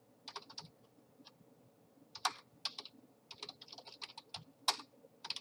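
Typing on a computer keyboard: irregular keystrokes, with a quick run of them in the middle.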